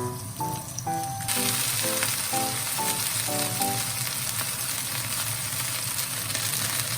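Food frying in oil in a pan, a steady sizzle that starts suddenly about a second in.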